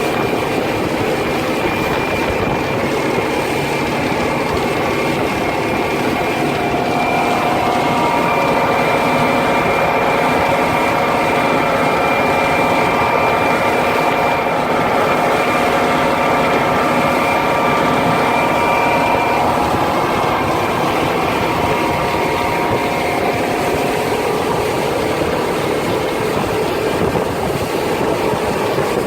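A World Cat 330TE catamaran's twin outboard engines running under way at a steady speed, a steady engine hum over a constant rush of wind and water noise.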